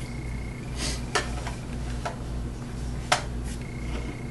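2012 Topps football trading cards being handled and sorted: light rustling and about three sharp clicks, roughly a second apart, as the card stock is tapped and shuffled.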